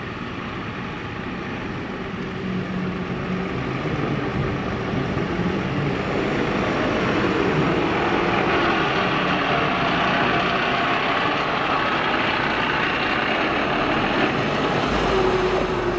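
Tatra Phoenix 6x6 dump truck's diesel engine running under load as the truck drives over rough sandpit terrain. It grows louder over the first several seconds as the truck approaches, then holds steady.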